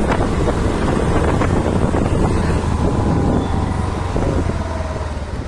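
Wind buffeting the microphone over the low rumble of a vehicle on the move, with a faint falling engine whine as it slows, the overall level easing off near the end.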